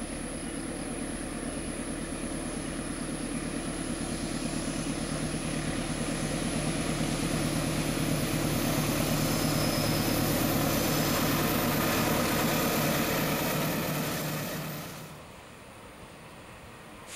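Diesel-electric locomotive engine running as it hauls a train of tank wagons up toward the listener, growing steadily louder. About fifteen seconds in it cuts off abruptly to a much quieter, distant rumble.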